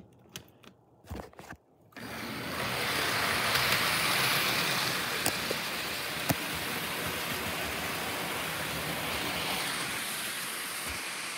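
Bachmann model train running on plastic track: a steady whirring rattle of motor and wheels that starts suddenly about two seconds in, after a few light clicks from a finger on the rails, with two sharp ticks a second apart.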